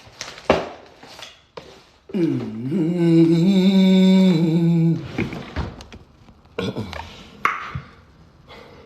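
A person humming one long note about two seconds in: it dips in pitch and then holds steady for about three seconds. Short knocks and handling noises come before and after it.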